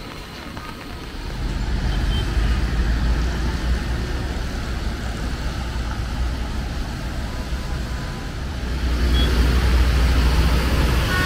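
Motor vehicles passing close by on a rain-wet street: engine rumble with tyre hiss. The sound swells about two seconds in and again near the end as vehicles go by.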